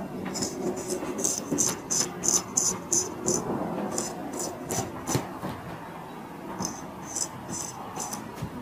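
Straight razor scraping over the skin and stubble of a man's neck in quick, short strokes, about three a second. The strokes come in runs of several, with brief pauses between runs.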